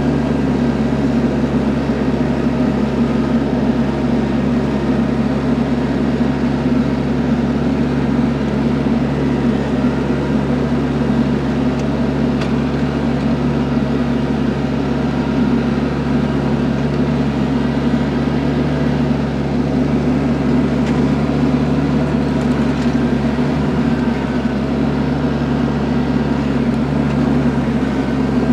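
TYM compact tractor's diesel engine running steadily at a constant working speed, with a continuous low hum and no breaks.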